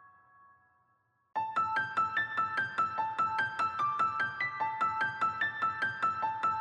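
Background piano music: a held chord fades away, then about a second and a half in a new piece starts with a quick, even run of repeating keyboard notes, about five a second.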